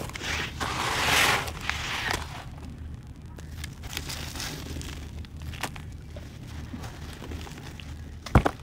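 Dry sand-cement chunks crushed and crumbled by hand, grit falling into wet paste in a plastic tub. The crunching is heaviest about a second in, then softer with scattered crackles, and a sharp crack comes near the end.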